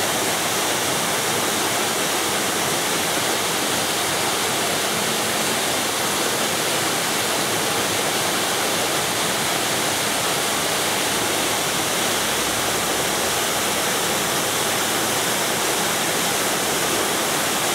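Minoo Falls: water rushing steadily down the falls as an even, unbroken wash of noise, loud and constant throughout.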